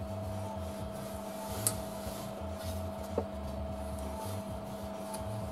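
A pencil held in a marking gauge rubbing along the edge of a wooden strip as a line is marked, with a couple of light knocks, over a steady electrical hum.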